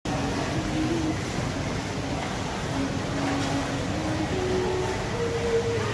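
Steady rumble of a moving vehicle, with a whine that changes pitch in short steps, mostly rising.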